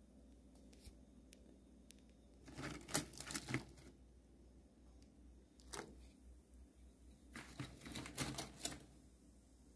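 Two bursts of crackling and clicking, each about a second long, one about three seconds in and one near eight seconds, with a lone click between: metal tongs handling crispy battered chicken skin and the pieces crackling in hot frying oil.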